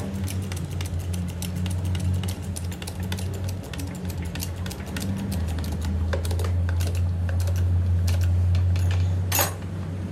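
Rapid, irregular metallic clicking and clinking as a hydraulic bottle jack is handled and set into a steel frame, over a steady low hum. A sharper metal knock comes near the end.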